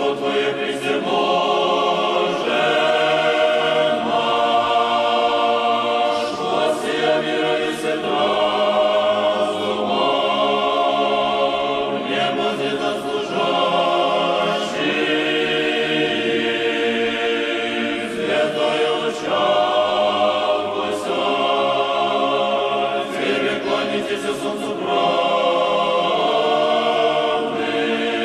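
Church choir singing Orthodox chant a cappella, several voices together.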